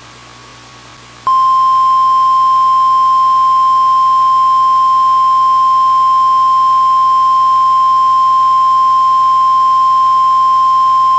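NOAA Weather Radio 1050 Hz warning alert tone: a single loud, steady, high beep held for about ten seconds. It starts about a second in and cuts off abruptly, signalling that a warning message follows. Faint hiss and hum run underneath.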